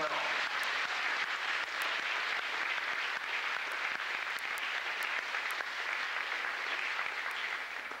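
Crowd applauding steadily, the clapping tapering off near the end.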